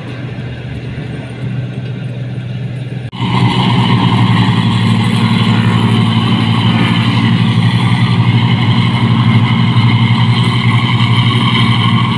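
Rice combine harvester with its engine and threshing machinery running steadily: a moderate hum at first, then suddenly much louder about three seconds in, as from close by.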